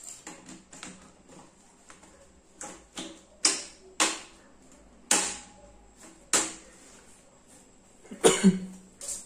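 Sharp clicks and knocks of a metal PC case cover being handled and fitted onto the case: several single knocks about a second apart, then a louder double knock near the end.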